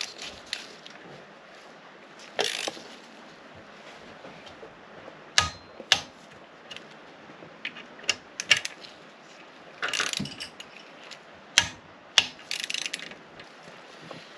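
A ratchet or torque wrench turning metal bolts to 10 newton metres: short runs of pawl ratcheting with several sharp separate clicks.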